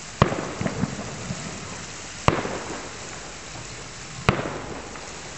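Fireworks shells bursting in the sky: three sharp bangs about two seconds apart, each trailing off in a fading echo.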